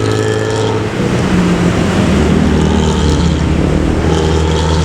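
Intercity bus with a loud 'ngorok' (snoring) exhaust running past at speed: a deep, steady engine drone over road noise, its note going deeper about two seconds in.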